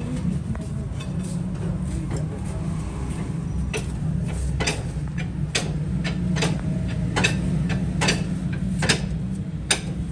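Car driving with a steady low rumble and a sharp, regular click a little more than once a second from the front axle. This is the clicking of a worn, grease-starved outer CV joint.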